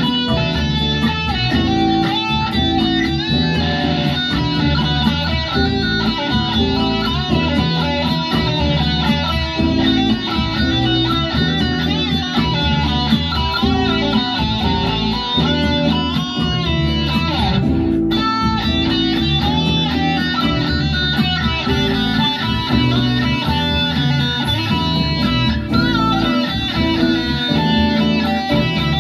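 Electric guitar music from a sunburst Les Paul-style electric guitar, played continuously at a steady level.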